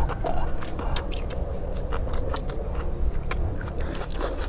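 Metal spoons scraping and clinking on metal plates of fried rice, mixed with fast chewing and mouth sounds, as a run of short irregular clicks.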